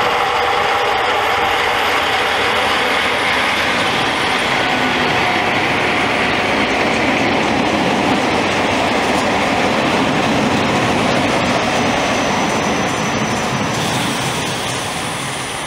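BB 8500 electric locomotive and its rake of stainless-steel RRR regional coaches passing at speed: a few held tones from the locomotive at first, then loud, steady wheel-and-rail noise as the coaches run by, dipping near the end.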